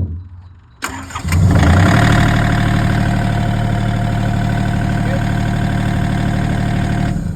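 A thump at the start, then a heavy machine's engine is cranked, catches within about a second and runs steadily before shutting off near the end. It is run to show where hydraulic oil is leaking from a chafed hose.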